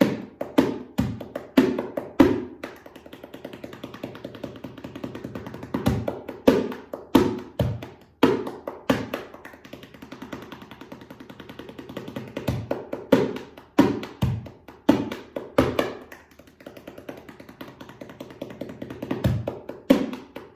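Darbuka played in a rhythm: sharp accented strokes, with long stretches of soft, rapid finger rolls between them. The rolls are the quiet 'hanging roll', played with the thumb braced on top of the drum.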